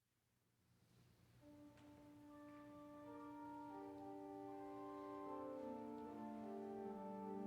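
Instrumental introduction to a hymn: sustained chords of long held notes fading in from silence over the first couple of seconds, then holding steady.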